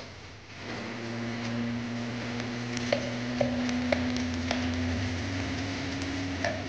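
Metal spatula clanking and scraping in a wok as fried rice is stir-fried, sharp knocks every half second or so from about three seconds in. A steady hum comes in about a second in and continues underneath.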